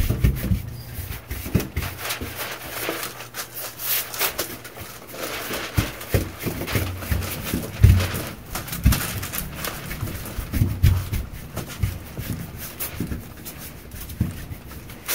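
A freshly sanded metal front door being dusted down by hand: irregular rubbing and wiping strokes over the steel with a few soft knocks against the door, removing sanding dust so the paint will adhere.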